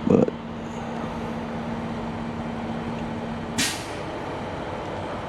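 Steady hum of a truck cab with a held low tone that stops about three and a half seconds in, at the same moment as a short, sharp hiss of released air from the truck's air system.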